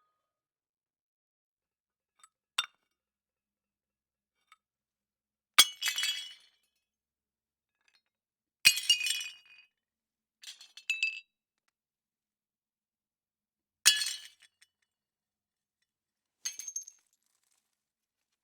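Plates smashing: three sharp crashes several seconds apart, each trailing into a brief rattle of breaking pieces, with smaller clinks and tinkles of shards in between and silence separating the events.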